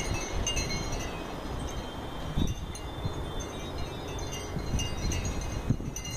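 Strong gusty wind rumbling on the microphone, with short metallic chiming tones ringing on and off above it.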